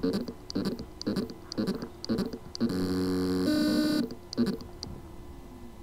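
Western Digital 2.5-inch laptop hard drive with loose spindle-motor contacts, buzzing in short pulses about twice a second, then holding one buzzy tone for about a second before one more pulse and a faint hum. This is the sign of loose motor contacts on the circuit board: the motor spins but cannot reach full speed.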